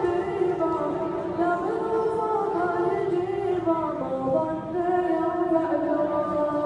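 A solo voice singing an Arabic ma'anna chant unaccompanied, drawing out long, slowly bending notes.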